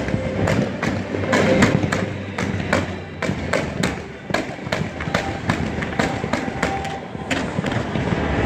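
Aerial fireworks going off in quick succession: a dense string of sharp bangs and crackles, several a second, with a brief lull about halfway through.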